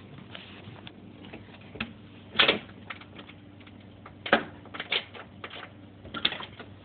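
A handful of sharp, irregular clicks and taps, spaced roughly half a second to a second apart, the loudest about two and a half and four seconds in.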